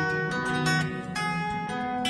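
Background music: a solo acoustic guitar picking a melody, several plucked notes ringing on over one another.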